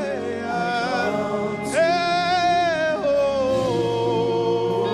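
Live worship band music from a slow worship song, with a voice singing long held notes that waver in pitch: one rising and held about two seconds in, then stepping down and held to the end.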